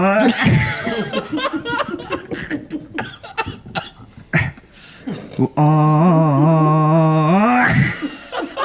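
A voice holding long low notes with strong overtones: one ends in an upward slide just as the sound starts, and another is held for about two seconds from about five and a half seconds in, rising at its end. Choppy chuckling sounds fill the gap between the two notes.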